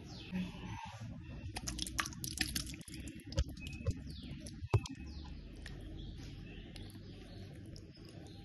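Spoon and bowl clicking and knocking as a thick egg filling is spooned onto shredded chicken on bastilla pastry, with the sharpest knock a little past the middle. Faint short chirps sound in the background.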